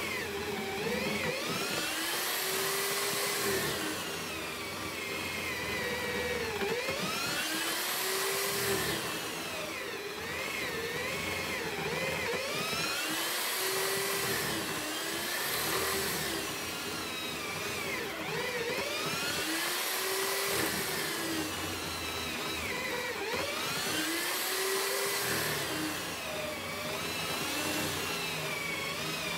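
Electric drill running continuously in a homemade mortising jig, its bit repeatedly plunged into and lifted out of the wood. The motor's pitch rises and falls every few seconds as the load comes and goes.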